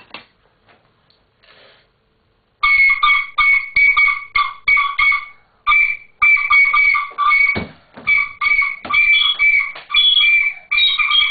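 A child blowing a small flute in short, uneven toots, about two a second, mostly on one high note, starting about two and a half seconds in.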